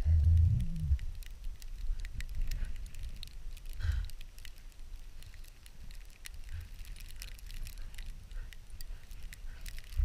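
Low husky growl during the first second and a short grunt about four seconds in, heard through an action camera worn on the dog. Between them come scattered clicks, crackles and rustling from the camera rubbing against fur, harness and snow.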